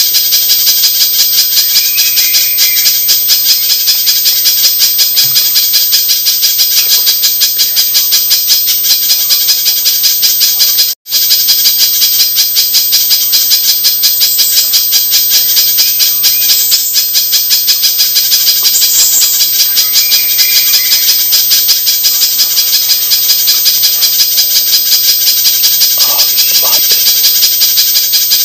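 Spiderhunter (pijantung) lure recording: a loud, continuous stream of rapid, high, rattling call notes, many a second. It cuts out briefly about eleven seconds in.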